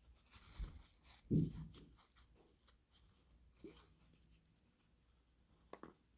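Faint rustling and rubbing of a paper towel as small model-locomotive motor brushes are wiped clean of contact cleaner, with two light clicks near the end.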